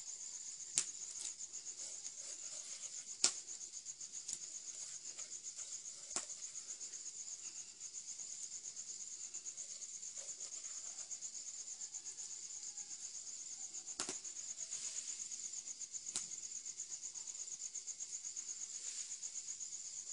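Steady high-pitched trilling of night insects, pulsing rapidly without a break, with a few sharp clicks and knocks scattered through it.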